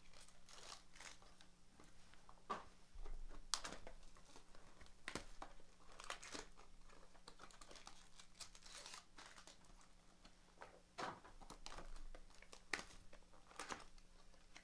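Trading-card packaging being unwrapped by hand: faint crinkling and tearing of plastic wrap, with scattered clicks and rustles as the box and packs are opened.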